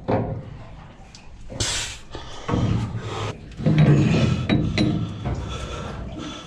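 Metal rubbing, scraping and clinking in irregular bursts as a replacement raw water pump is worked by hand into its mounting on a Detroit Diesel Series 60 engine. The sharpest scrape comes about two seconds in.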